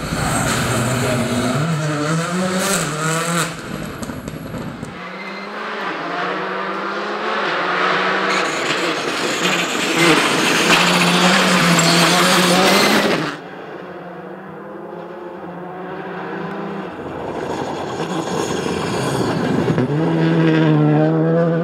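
Škoda rally car engine revving hard at full stage speed, its pitch rising and falling through quick gear changes. A louder rushing noise of tyres and thrown gravel builds in the middle and cuts off sharply a little past halfway, then the engine climbs again near the end.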